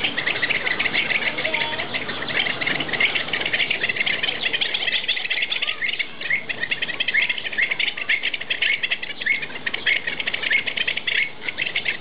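A flock of pied avocets calling together: a dense, continuous run of short, high notes, many each second and overlapping.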